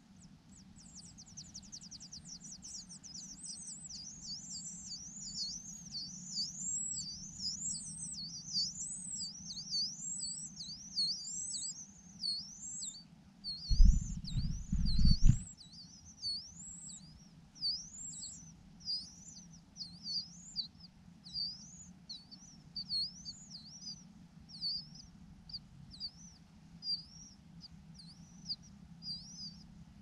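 Large niltava nestlings begging for food: high, sweeping chirps in a fast run at first, then repeated steadily and spacing out toward the end. Two or three loud low thumps about fourteen seconds in.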